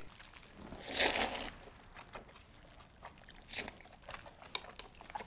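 A person slurping and chewing jjajangmyeon (black-bean sauce noodles): one loud slurp about a second in, then quieter, scattered chewing sounds.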